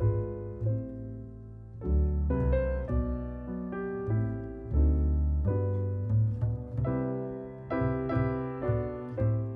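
Background piano music: a run of struck notes over a sustained bass line.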